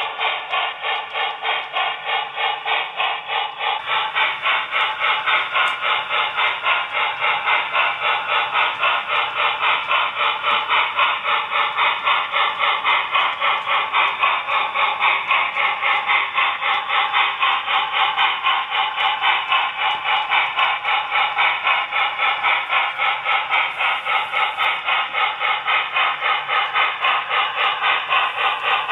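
Steam locomotive chuffing in a fast, even rhythm of about three to four beats a second, the running sound of a steam train on an HO model railroad.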